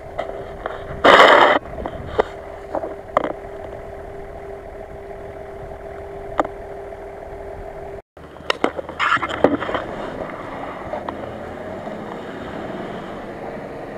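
A 4x4's engine idling with a steady hum, broken by a loud brief rush of noise about a second in and several sharp knocks and clicks. After an abrupt cut about eight seconds in, more clattering and a rougher engine-and-ground noise follow.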